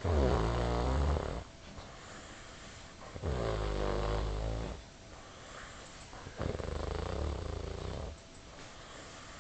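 A man snoring in his sleep after drinking a bit too much: three long, low snores, each about a second and a half, coming about every three seconds.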